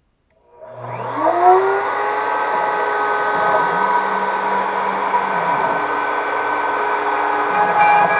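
CNC router's spindle motor starting up about half a second in, its whine rising quickly in pitch, then running steadily at full speed.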